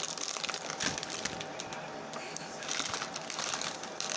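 Plastic snack packaging being handled, with irregular crinkling and crackling.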